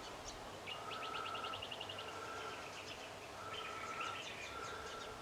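Faint bird calls: a quick run of chirps about ten a second, and a short whistled note repeated several times.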